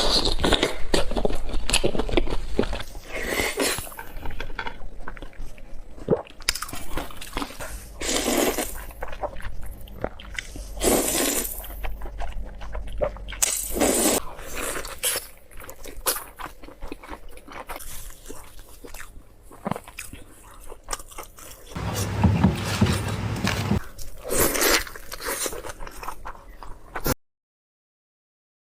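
Close-miked biting and chewing of food, with repeated crisp crunches between quieter stretches of chewing. The sound cuts to dead silence near the end.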